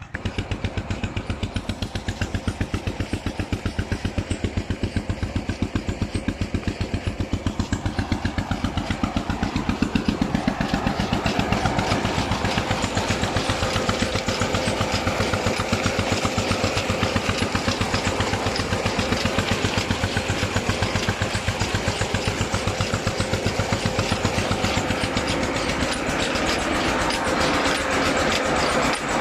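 An engine running steadily with a fast, even chugging pulse, growing louder about a third of the way in.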